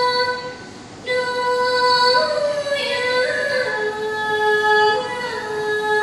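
A teenage girl singing solo in Thai classical vocal style, with no instruments playing, holding long notes that slide and waver between pitches. Her voice drops away about half a second in and comes back at about a second.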